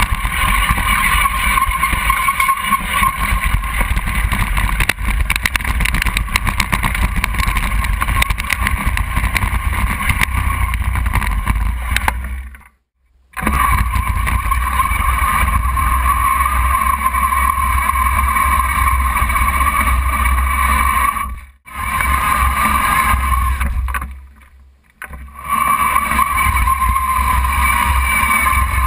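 Homemade radio-controlled tracked vehicle driving, heard close from a camera mounted on its hull: a steady mechanical whine over a low rumble from its drive and tracks. The sound cuts out abruptly three times, about 13 s in, about 21 s in and about 24 s in, then picks straight back up as it drives on.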